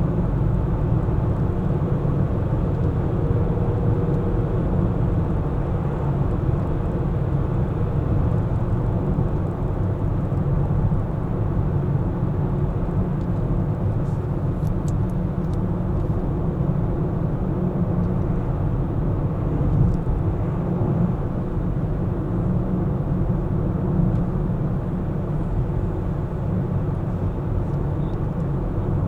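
Steady low rumble of a car being driven, road and engine noise with no distinct events.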